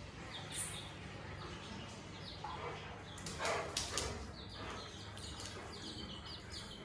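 Young chicken chicks peeping faintly, short high calls repeated every fraction of a second, most often in the second half. A few faint short sounds about two and a half to four seconds in.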